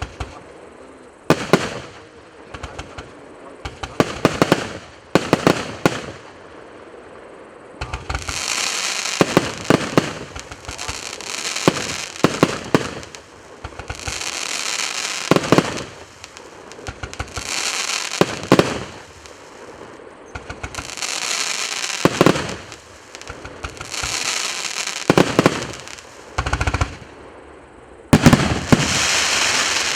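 A multi-shot fireworks cake (118 shots, 1.0" and 1.9" tubes) firing in sequence, with sharp launch and burst bangs. From about eight seconds in, each shot is followed by a long crackling hiss from crackling-star effects, repeating about every two seconds.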